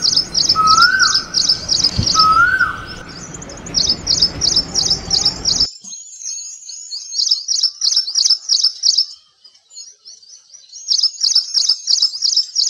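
Birdsong: small birds chirping in quick, repeated high trills, with three short rising whistled notes in the first few seconds. A background hiss drops out about six seconds in, and the chirping goes on more thinly, with short gaps, before picking up again near the end.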